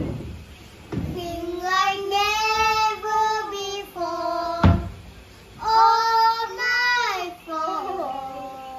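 A child singing a song, holding long notes in phrases, with a short thump about halfway through.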